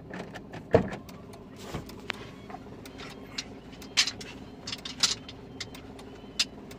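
Car engine idling, heard from inside the cabin, with a series of sharp clicks and knocks from handling inside the car. The loudest knock comes about a second in.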